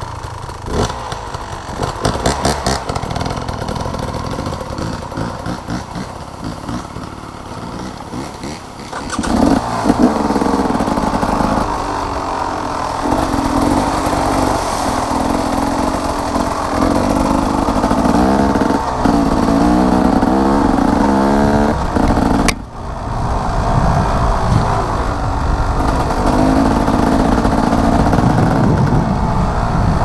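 Dirt bike engine on an off-road trail, fairly subdued for the first nine seconds, then loud as the bike accelerates, its pitch repeatedly climbing and dropping back with throttle and gear changes. There is a brief sudden break about two-thirds of the way in.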